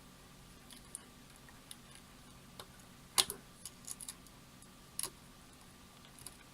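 Scattered small clicks and taps, the loudest about three seconds in, from plastic jumper-wire connectors being pushed onto header pins and handled.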